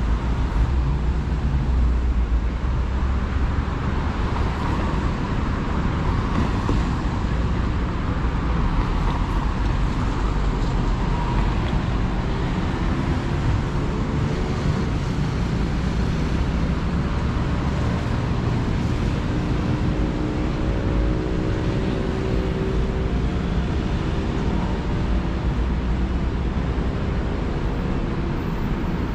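Road traffic: a steady wash of cars going by, with a vehicle engine's hum sliding slowly up and down in pitch through the second half.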